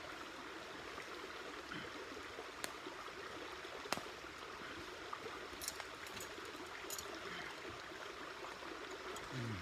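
A steady rushing background, like flowing water, with a few sharp clinks of a metal utensil against stainless-steel pots, the loudest about four seconds in.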